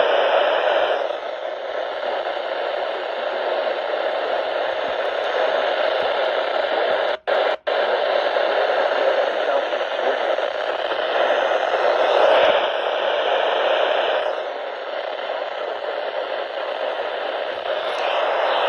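Radio static: a steady hiss from a weather radio receiver tuned to a weak NOAA Weather Radio signal, with two brief dropouts about seven seconds in.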